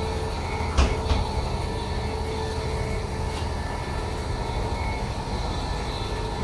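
Steady running noise of a Class 700 Desiro City electric train heard inside the passenger saloon, with two knocks close together about a second in.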